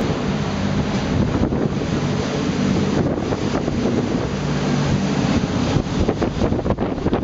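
Wind buffeting the microphone over the rush of churning water from a fast pilot boat's wake, with a steady low engine hum underneath. The buffeting turns choppier near the end.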